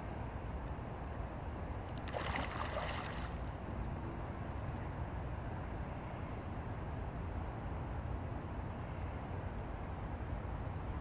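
Shallow river water flowing and rippling over a riffle, a steady low rushing, with a brief splash about two seconds in.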